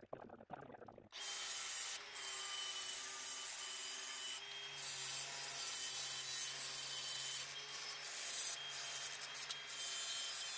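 Angle grinder with a flap disc grinding the curved edge of a sheet-steel patch panel, shaping it to the scribed curve. It starts about a second in and runs steadily, with a steady whine over the grinding noise and a couple of brief dips as the load eases.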